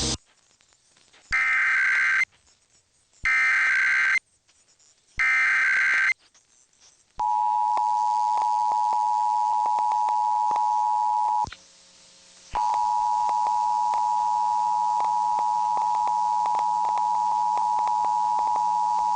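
Emergency Alert System test signal on AM radio: three one-second squawks of the SAME data header, then the two-tone attention signal (about 853 and 960 Hz) begins about seven seconds in. The tone cuts out for about a second partway through, then resumes, with faint clicks over it. It opens a required monthly test of the alert system.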